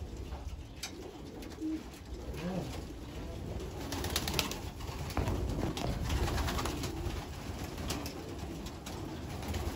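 Racing pigeons cooing in a loft, a few short low calls over a steady low rumble, with scattered sharp clicks and rustles.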